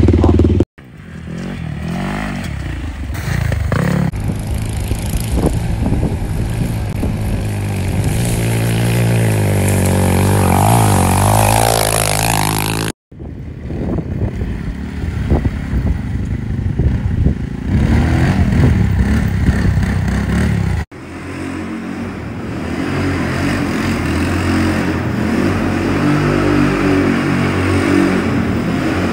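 Quad ATV engines revving and running hard across several short clips, rising and falling in pitch, with abrupt cuts between clips about 1, 13 and 21 seconds in. The last clip is a small quad spinning donuts on a concrete floor.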